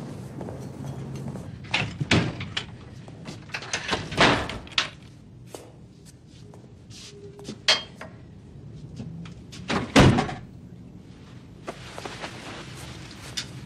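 A string of sharp knocks, bangs and thumps, like doors or cupboards being handled, with the loudest thud about ten seconds in.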